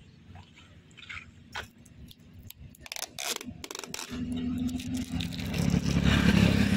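Light scraping and crackling as the brown strips across a pickup bed are handled and pulled, with a cluster of sharp crackles about three seconds in. From about four seconds in, a vehicle engine's steady low hum comes in and grows louder.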